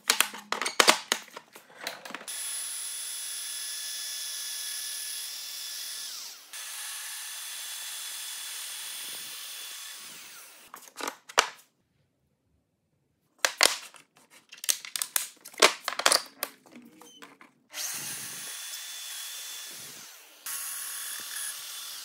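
Festool Domino XL DF 700 joiner running and plunge-cutting mortises into wooden blocks. Its motor runs with a steady whine for several seconds at a time, with clusters of clicks and knocks from handling the tool and boards between cuts, and a short silence partway through.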